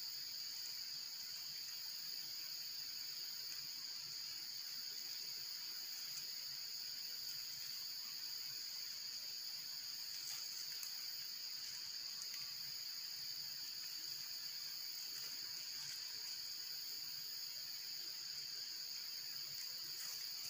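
A steady, high-pitched chorus of insects droning without a break, with a few faint clicks around the middle and near the end.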